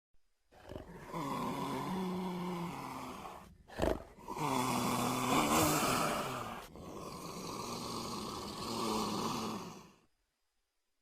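Utahraptor creature sound effect: a long, breathy, rasping growl with a throaty pitched tone wavering under it, in three stretches, with a sharp click just before the second. It fades out about a second before the end.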